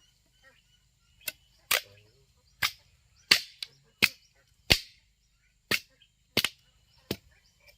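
Hand tool striking wood: a series of about ten sharp blows at an uneven pace, roughly one every half second to second.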